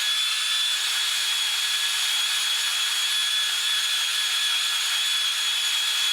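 Drill spinning a round wire brush against an oil pan, scrubbing the cracked area clean before it is patched with epoxy. The drill runs at a steady high speed, a constant whine over the hiss of the bristles.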